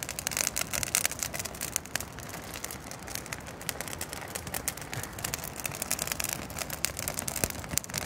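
Campfire crackling, with many small irregular pops and snaps.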